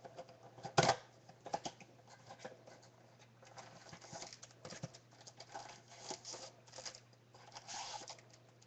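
Panini basketball blaster box being opened and emptied: cardboard tearing and scraping, and packs rustling and crinkling as they are pulled out. Irregular clicks and scrapes, the loudest a sharp snap about a second in, with a longer rustle near the end.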